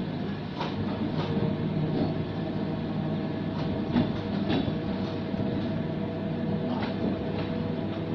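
Passenger train rolling slowly into a station, heard from on board: a steady rumble of wheels on the track with irregular clicks as the wheels cross rail joints and points. A steady whine joins about a second and a half in.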